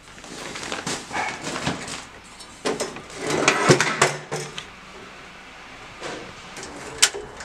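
Metal stepladder being handled and carried, clanking and knocking with scraping noises. The loudest clatter comes about three and a half to four seconds in, and there is a sharp knock near the end.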